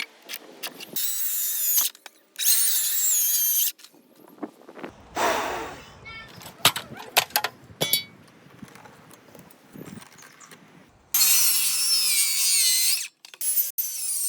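Power tools working spruce lumber: three loud bursts of a few seconds each, starting and stopping abruptly, with a shorter sweeping run of a tool a few seconds in and scattered knocks and clicks of wood being handled in between.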